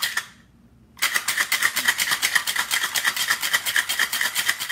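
Ice rattling inside a stainless steel cocktail shaker shaken hard by hand: a rapid, even rattle of many strokes a second that starts about a second in.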